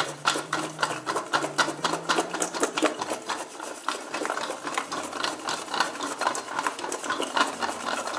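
Sliced raw potatoes with oil and spices rattling inside a lidded enamel pot shaken by hand: a fast, even rattle of several shakes a second as the slices knock against the pot and lid.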